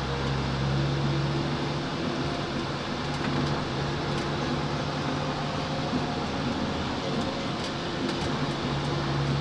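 Dumper truck's diesel engine running at a steady speed, a constant low drone under a noisy rumble.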